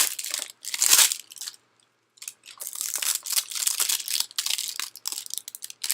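Packaging of a mystery mini box being torn and crinkled open by hand: crackling and ripping in uneven bursts, with a brief pause about two seconds in.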